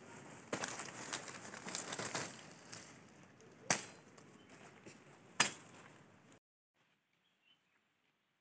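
Rustling and crackling of dry weeds and leaves close by, with two sharp snaps a little past the middle. About two-thirds of the way through the sound cuts off to near silence.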